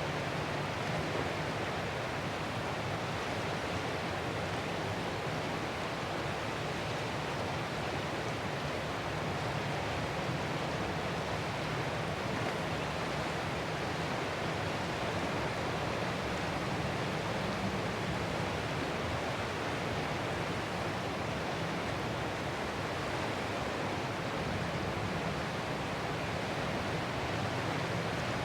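Ocean surf as a steady, even wash of noise, with no separate wave crashes standing out.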